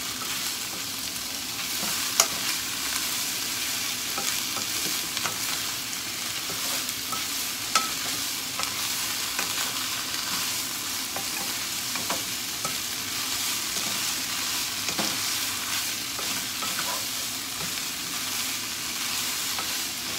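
Sliced fuki (Japanese butterbur) stalks sizzling in hot oil as they are stir-fried in a nonstick frying pan, a wooden spatula stirring and tapping against the pan. Two knocks stand out: one about two seconds in and another a few seconds later.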